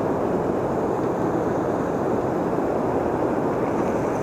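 Steady rush of flowing river water, an even noise with no break or change.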